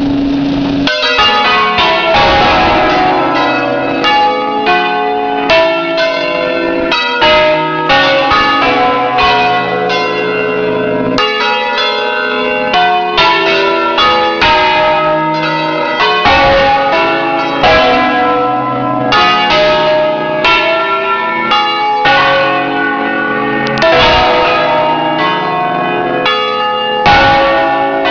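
Eight bells of a nine-bell Ambrosian-system ring tuned in C, swinging and striking in a solemn concerto, heard close up inside the belfry. Strokes follow one another in a quick, continual succession, their tones overlapping into dense, loud ringing.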